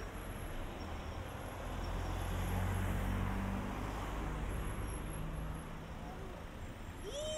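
A motor vehicle passes in street traffic, its low engine hum swelling about two seconds in and then easing back into steady road noise. Right at the end a cat begins to meow.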